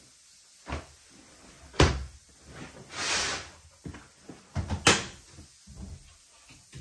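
Sharp knocks and clicks of a kitchen cupboard and a front-loading washing machine being handled, with a rustle partway through from laundry being moved in the drum; a cupboard door under the sink is pulled open with clicks about five seconds in.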